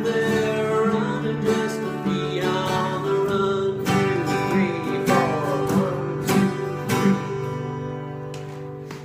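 Strummed acoustic guitar playing a country-style song's closing chords, with the sound dying away near the end.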